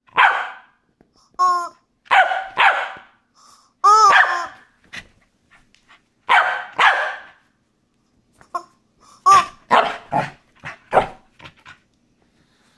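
A corgi barking excitedly in a string of short, sharp barks with pauses between, mixed with a few pitched squeaks of a rubber chicken toy.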